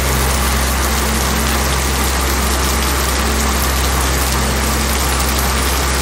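Steady roar of a large waterfall, white water rushing over and around rocks, with a deep rumble underneath.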